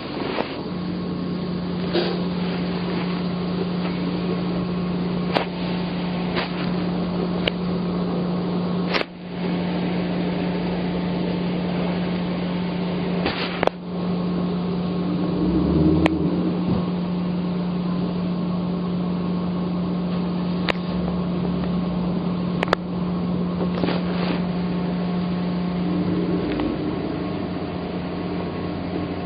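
Boat motor running at a steady speed, a constant low hum, with a few sharp knocks scattered through it.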